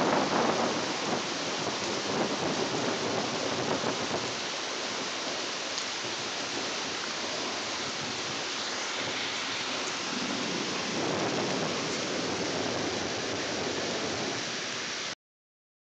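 Steady rain hissing through a thunderstorm, with thunder rumbling over the first few seconds and a second, softer roll about ten seconds in. The sound cuts off suddenly near the end.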